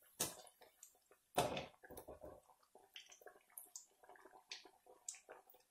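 Banana-flower vadai deep-frying in hot oil in an aluminium kadai: a soft, uneven sizzle with scattered small crackles, the flame turned low so they cook through. Two louder moments, about a quarter second and a second and a half in, come as the slotted ladle moves through the oil.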